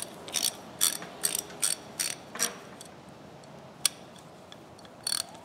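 Old Plomb 1/2-inch-drive hand ratchet clicking as its pawl ratchets: a quick run of about seven sharp clicks, roughly two and a half a second, then two more single clicks spaced well apart.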